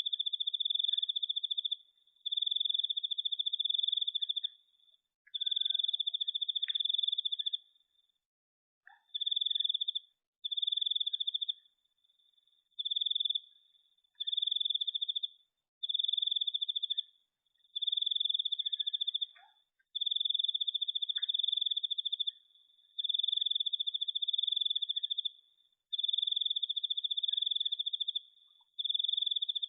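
A cricket trilling: a high, rapidly pulsed chirping in bouts of a second or two, with short pauses between them.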